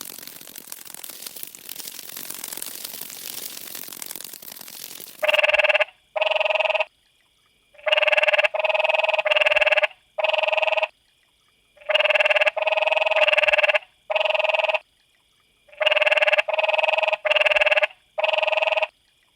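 A steady hiss for about five seconds, then an electronic buzzing tone in short bursts of under a second each. The bursts come in repeating groups of three or four with short pauses between groups, and each burst cuts in and out cleanly.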